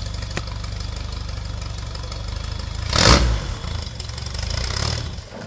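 Robin Hood kit car engine idling with a steady low pulse. About three seconds in there is a loud short burst and the engine note swells for a second or two, then the engine cuts out near the end.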